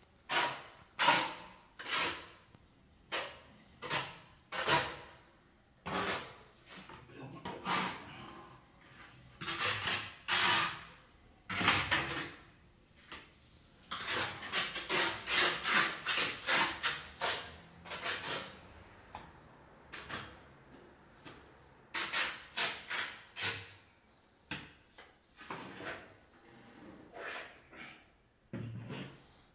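Irregular knocks and scrapes of hand tools on masonry and rubble during renovation work, with denser runs of scraping at a couple of points.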